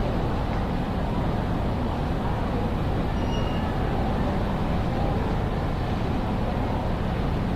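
Steady ambient noise of a large railway station concourse: a low rumble of building ventilation and distant activity under an indistinct murmur of crowd voices, with a faint short beep about three seconds in.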